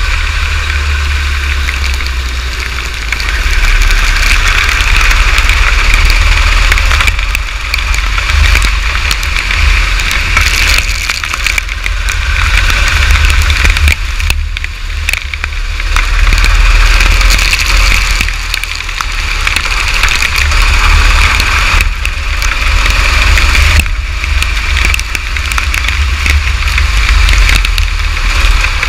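A go-kart engine running on track, its sound rising and falling every few seconds with the throttle through the corners. Heavy wind rumble and rain on the onboard microphone cover much of it.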